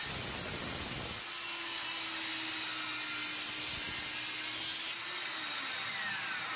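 Takagi DM-110 165 mm circular saw finishing a cut through a wooden board, then spinning free, under the steady hiss of a vacuum dust collector drawing through the saw's duct. Near the end the saw's tone falls as it begins to wind down.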